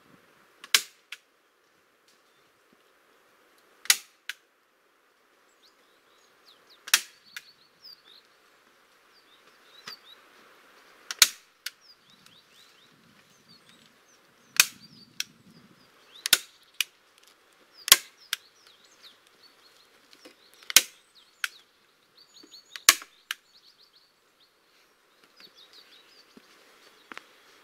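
Staple gun firing into plastic sheeting over wood: a sharp snap every two to three seconds, now and then two in quick succession. Birds chirp faintly behind.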